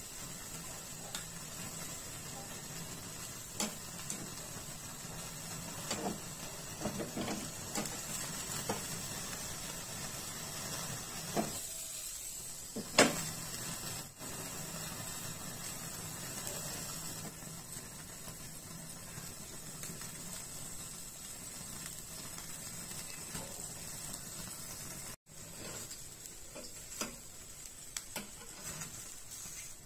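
Gas stove burner hissing steadily under a wire grill rack, with scattered light clicks and knocks as raw chicken gizzards are set on the rack, the sharpest about 13 seconds in.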